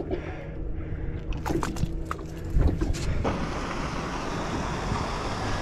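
Fishing boat's engine running with a steady low hum. A few sharp clicks and knocks come between about one and a half and three seconds in, and then a steady rushing noise of wind and water sets in.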